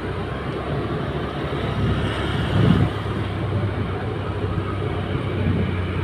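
Motorbike ridden slowly through street traffic: steady engine hum with road and wind noise, and a brief louder swell a little under three seconds in.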